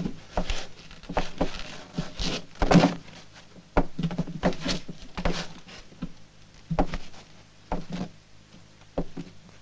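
Scuffling bodies: a string of irregular thuds, knocks and clothing rustles, unevenly spaced, loudest about three seconds in.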